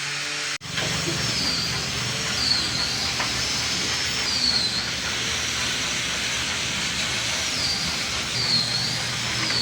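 A power tool running steadily with a loud hiss over a low motor hum, starting abruptly about half a second in.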